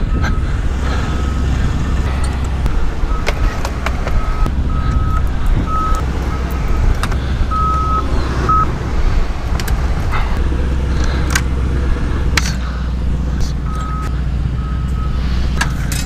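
Construction-equipment backup alarm beeping in a steady single tone about twice a second, rising and fading in strength, pausing for several seconds and starting again near the end. A steady low rumble runs underneath, with occasional clinks and knocks of gear being handled.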